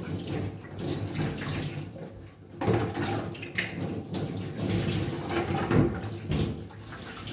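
Water running from a tap into a bucket, with water poured from a plastic cup splashing over a wet cat as shampoo is rinsed off its fur in a laundry tub. The pours come and go in short surges over the steady running water.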